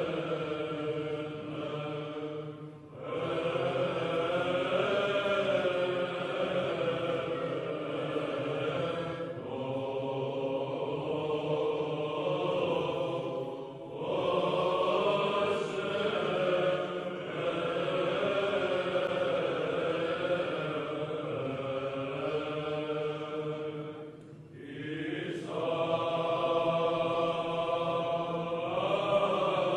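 Byzantine chant: voices singing a slow, drawn-out melodic line over a steady held drone, in long phrases with brief pauses between them.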